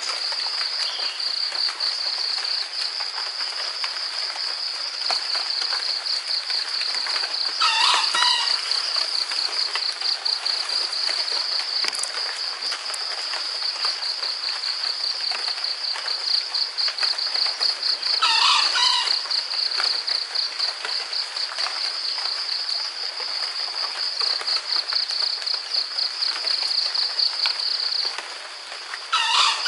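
Steady, finely pulsing chorus of insects, with a wild junglefowl rooster crowing three times about ten seconds apart over it.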